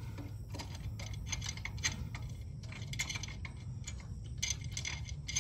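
Irregular light metal clicks and clinks of bolts and spacers being handled and fitted on a pressure washer pump's mounting to the engine.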